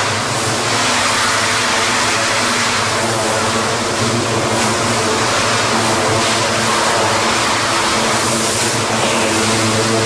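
Pressure washer running steadily: a motor or pump hum under the hiss of the water jet spraying down steel farrowing crates.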